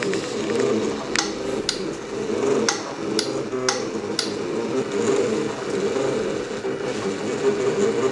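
Stepper motors of a wood-framed 3D printer running during a print, a steady warbling buzz. Sharp clicks come about every half second for a few seconds early on.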